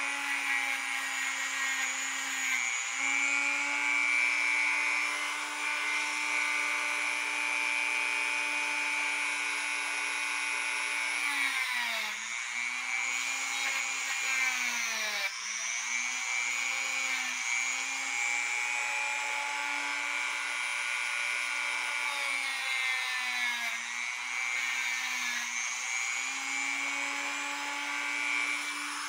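Dremel rotary tool with a wire brush running steadily at high speed, its pitch sagging briefly a few times as the brush bears on the cuckoo clock's pivots and verge to clean off burrs.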